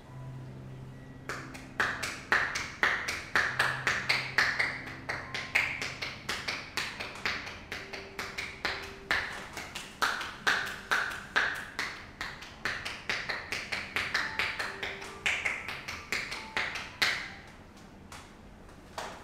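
Massage percussion: the therapist's hands strike the body in a fast, even run of slaps, about four a second. It starts about a second in and stops near the end.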